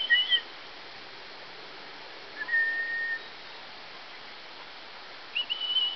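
A person whistling three clear, high notes: a short wavering one at the start, a long steady one in the middle, and a short one near the end.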